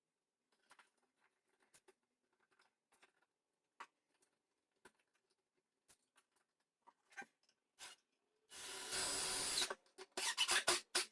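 Faint scattered clicks and scrapes of a screw and tools being handled at an electrical outlet box, then a loud burst of noise lasting about a second near the end, followed by a few sharp clicks.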